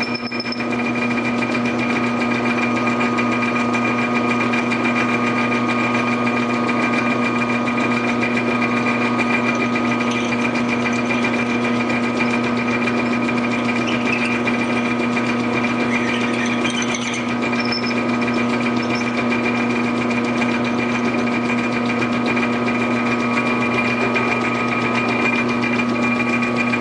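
Metal lathe running steadily at speed, a steady motor-and-drive hum with a constant whine, while a twist drill in the tailstock chuck bores into a spinning brass part.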